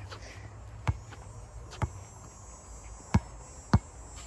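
A basketball bounced on a hard outdoor court: four slow, unevenly spaced dribbles.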